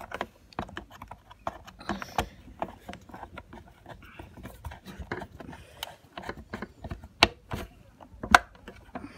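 Irregular small clicks and taps of hands working a screwed-on rubber foot on the sheet-metal base of a small ceramic electric hob, with sharper knocks about two seconds in and twice near the end.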